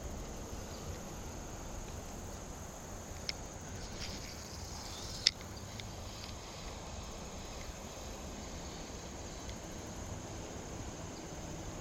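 Insects calling steadily over quiet outdoor background noise, with a short sharp click about five seconds in and a fainter one about two seconds before it.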